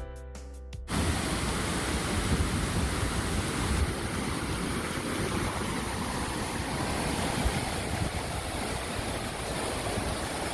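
Waterfall: the steady rush of falling water, coming in suddenly about a second in as background music cuts off.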